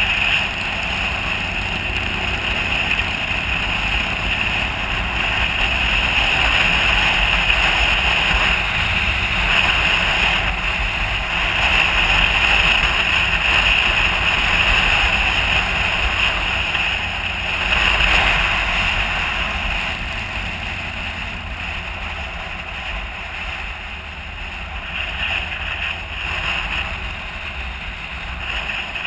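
Wind rushing over the microphone of a camera mounted on a moving motorcycle, with the motorcycle's engine and road noise underneath. It eases off somewhat in the last third.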